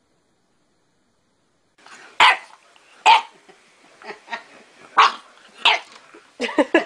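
Small white puppy barking at its own reflection in a mirror. After a silent start come single sharp barks about a second apart, quickening into a rapid run near the end.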